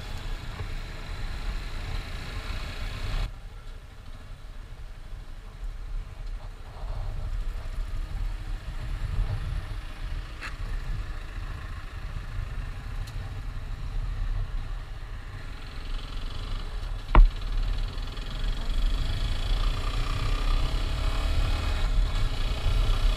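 Motorcycle engine running at low speed with road and wind noise, heard from a camera mounted on the rider. A single sharp click comes about two-thirds of the way through.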